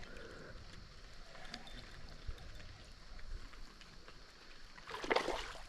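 Faint flowing river water, with scattered small ticks and a brief louder burst of noise about five seconds in.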